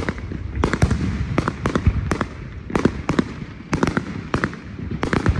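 Aerial fireworks going off: a rapid, irregular string of sharp bangs and crackles over a low rumble.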